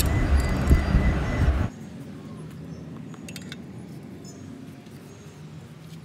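Metal clutch parts clinking a few times as they are handled, over a low workshop rumble that cuts off abruptly about two seconds in, leaving a quieter background with a few more faint clinks.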